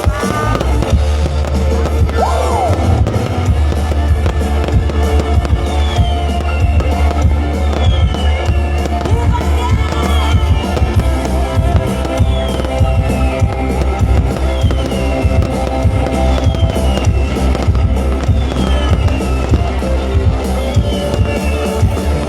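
Loud instrumental music from a stage sound system, with heavy steady bass and drums and a short falling melodic phrase repeating about every two seconds. Fireworks bang and crackle behind it.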